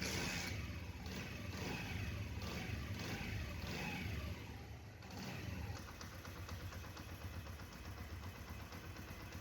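Honda CD 70 motorcycle's small single-cylinder four-stroke engine running after its carburetor has been tuned. It is revved up and down for the first few seconds, then settles to an even idle.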